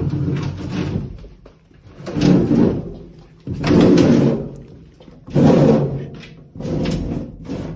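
Sheet-metal cabinet of a new 96% two-stage gas furnace scraping as it is shoved into place under the cooling coil. Five rasping scrapes of about a second each.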